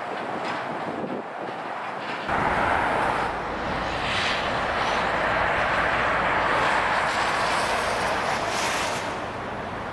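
Motorway traffic noise: a heavy vehicle's tyres and engine swell as it passes. A low rumble comes in suddenly about two seconds in, and the noise eases near the end.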